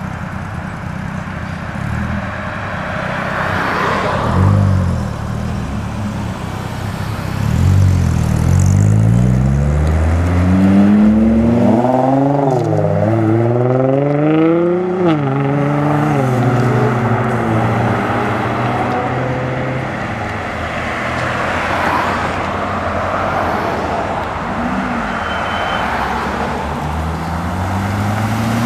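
Sports car engines driving past and accelerating away. One car pulls away hard from about eight seconds in, its pitch climbing and dropping back at several upshifts until about sixteen seconds in. Another engine revs up near the end.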